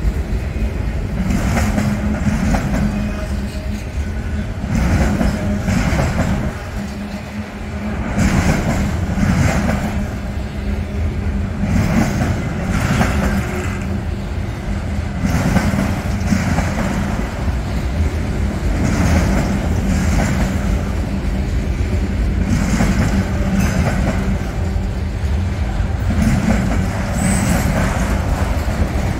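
Freight train of autorack cars rolling past at close range: a steady low rumble of steel wheels on rail, with clacks that repeat about every second or so as the wheel sets pass.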